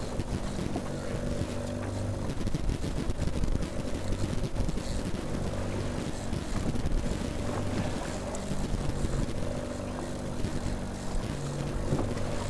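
Fishing boat's outboard motor running steadily at trolling speed, an even hum, with wind and water noise.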